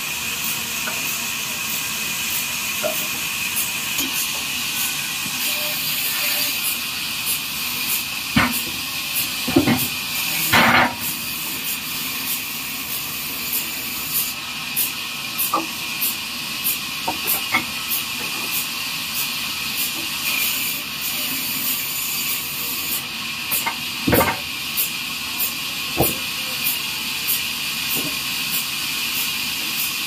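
A heavy log knocking and thudding against the steel carriage of a horizontal trolley sawmill as it is rolled on and shifted into place. There are a few loud knocks about a third of the way in and another near two-thirds, over a steady hiss of sawmill machinery running.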